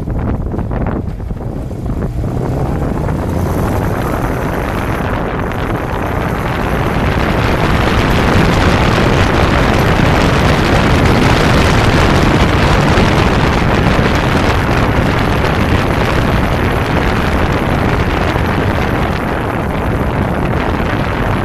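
Kawasaki Zephyr 550 air-cooled inline-four motorcycle running along the road, with wind rushing over the bike-mounted microphone. The wind noise builds a few seconds in, stays strong through the middle, and eases slightly near the end.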